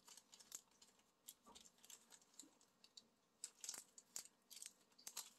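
Faint, scattered crinkles and clicks of a foil instant-noodle seasoning packet being torn open and squeezed out over a glass measuring cup, a little busier about three and a half seconds in.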